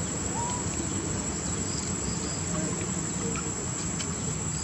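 Insects droning steadily at one high pitch, with a few faint short chirps here and there.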